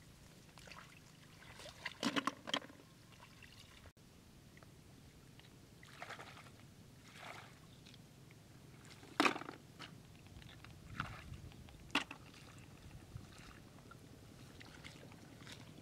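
Shallow water sloshing and splashing as hands grope in it and feet wade through it: a string of short splashes, the loudest about nine seconds in.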